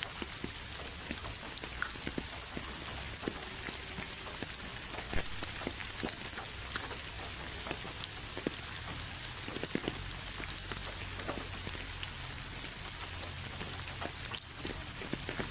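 Steady rain with many separate drops ticking at irregular moments, heaviest near the middle and just before the end.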